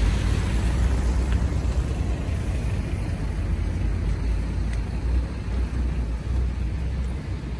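Road traffic: a van passing, then a loaded dump truck pulling by, with a steady low engine and tyre rumble that eases a little toward the end.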